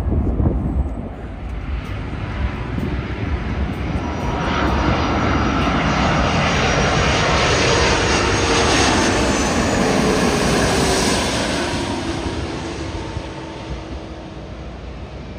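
Airbus A330 airliner on final approach with its gear down, passing low overhead: the jet engine noise swells over several seconds, peaks, then fades away, its whine sliding down in pitch as the plane goes past.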